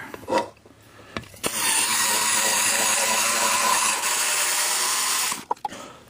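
Electric drill with a step bit cutting through epoxy to enlarge a hole, running steadily for about four seconds from about a second and a half in, then stopping sharply.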